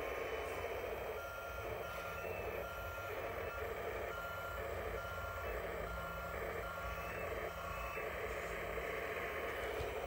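Reversing beeper of a 1/14-scale Kabolite K988 (CAT 988K) RC hydraulic wheel loader, beeping about twice a second from about a second in as the loader backs up, over the model's steady running noise.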